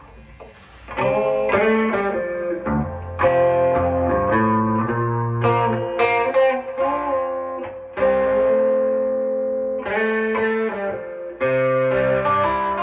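Electric guitar played through a Fender Deluxe Reverb-style amp, a low amp hum at first, then from about a second in chords struck every one to three seconds and left to ring.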